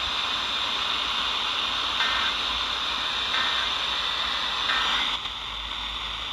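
Steady radio static hiss from a receiver between weather-alert broadcasts, with a few faint short tones in it.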